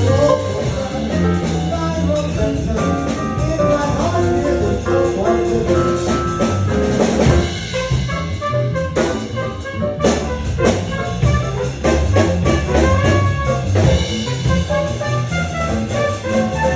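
Live New Orleans jazz band playing, with brass horn lines led by trumpet over a drum kit and bass.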